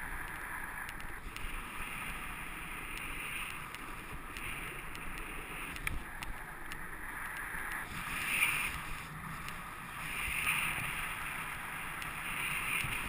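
Snowboard sliding over groomed corduroy snow: a steady scraping hiss that swells several times in the second half as the board turns on its edge, mixed with wind rushing over the microphone.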